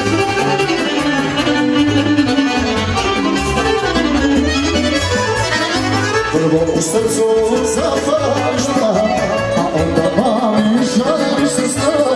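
Accordion-led Serbian folk dance music for a kolo, played by a live band over a steady beat.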